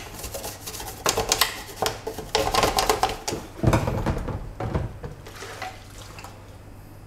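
Toothbrush scrubbing a plastic toy vehicle's hull in a sink of soapy water, with irregular brushing strokes and splashing as the toy is moved about in the suds, fading toward the end.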